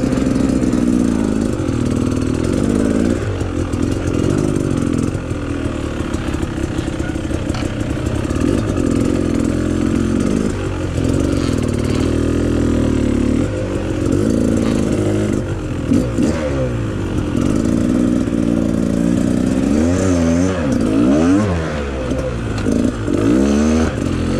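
Dirt bike engine running and revving up and down while it is ridden over a rough trail, its pitch rising and falling, with several quick revs near the end.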